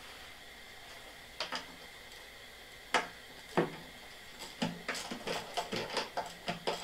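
Clicks and clinks of a socket wrench being worked on the snowblower's metal. A faint pair of clicks comes about a second and a half in, then two sharp knocks around three seconds in, then a quick, uneven run of clicks through the last two seconds.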